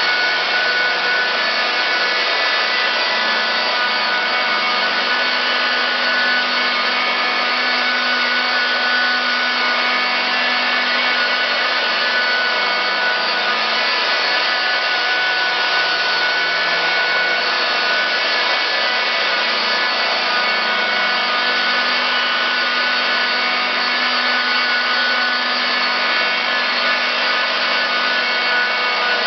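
Small handheld angle polisher with a 3M cutting pad running steadily on car paint, spot-correcting scratches: an even whine, with a lower hum that grows and fades a couple of times.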